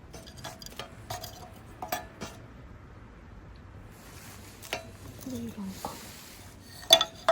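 Metal utensil clinking against metal cookware in a run of light, irregular taps, each with a short ring. The loudest clink comes near the end, and a soft hiss rises for a couple of seconds in the middle.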